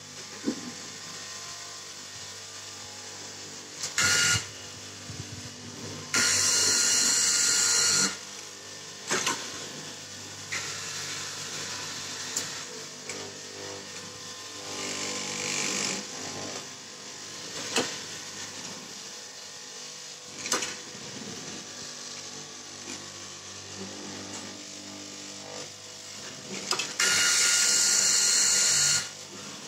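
Straight-knife cloth cutting machine buzzing as its vertical blade cuts through a thick stack of T-shirt fabric. It comes in two loud stretches of about two seconds, one a few seconds in and one near the end, with shorter, quieter spells between, over a steady hum.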